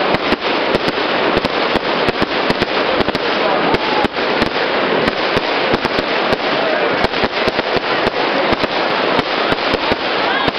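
Fireworks going off at close range: a dense, continuous crackle with many sharp bangs, several a second.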